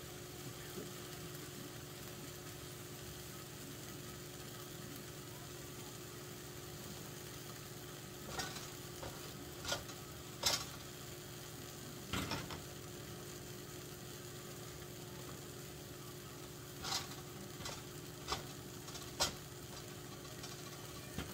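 Steady low hum, then from about eight seconds in a handful of short scrapes and knocks as a wooden spoon and spatula stir vegetables in a frying pan.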